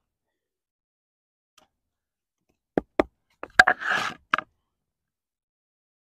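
A handful of short, sharp knocks and clicks, with a brief scrape among them, as the Takumitak Solution's D2 steel tanto tip is worked and twisted into a bark-covered slab of wood lying on a stump. They come in a cluster from about three seconds in to about four and a half seconds in.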